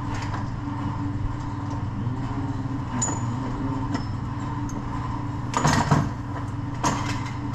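Steady low hum with a few sharp knocks about five and a half to six seconds in and one more near seven seconds: hand work on a hub bearing mounting bolt that is being fitted into the steering knuckle.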